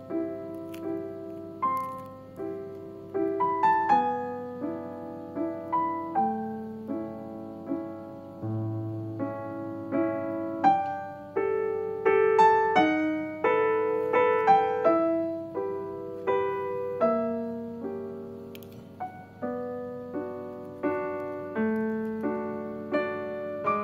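Background piano music: a gentle melody and chords of struck notes that each ring and fade.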